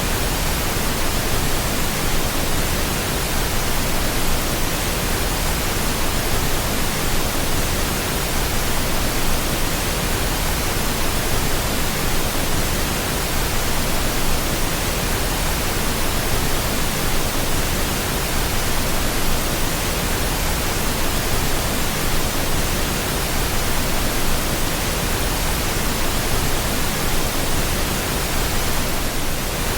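Steady pink noise, a constant even hiss with no change in level or texture.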